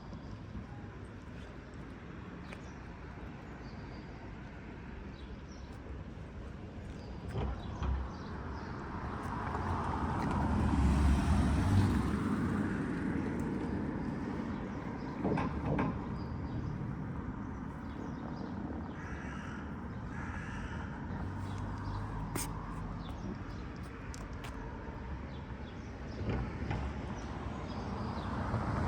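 Street ambience with a vehicle passing, the noise swelling and fading about ten seconds in. Two short animal calls follow around twenty seconds in.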